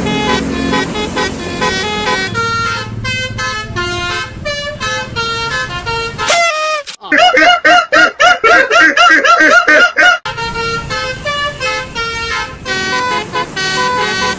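Basuri-style 'telolet' multi-tone bus horn playing a tune of short notes, broken in the middle by a loud, fast up-and-down warbling trill lasting about three seconds, after which the tune resumes.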